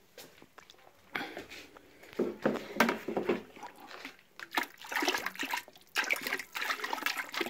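Thin, milk-like kiln wash slurry sloshing and swirling in a plastic bucket as it is swooshed around by hand, coming in irregular surges. The sound shows how runny the wash is: mixed thin, to the consistency of milk.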